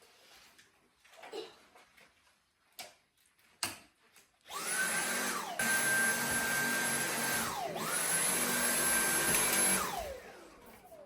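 Vacuum cleaner motor switched on about halfway through, with a steady high whine over its rushing noise; it spins down and starts up again twice, then winds down near the end. A few light knocks come before it starts.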